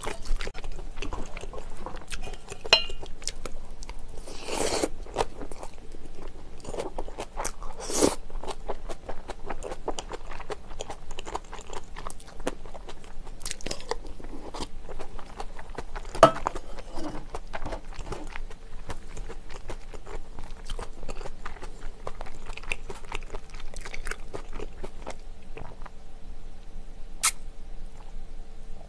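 Close-miked eating: steady chewing and biting with crunching, and a few louder sharp clinks of utensils on metal dishes.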